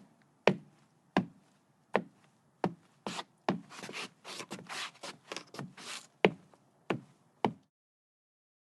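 Footsteps on wooden decking: separate hard steps about every 0.7 seconds, then about three seconds of dense scuffing and crackling underfoot, then three more steps that stop about 7.5 seconds in.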